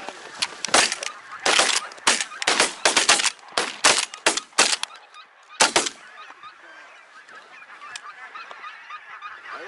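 A rapid volley of shotgun shots from several hunters, about twenty cracks in quick succession over the first six seconds, fired at a goose flock overhead. Geese honk throughout and are heard on their own after the firing stops.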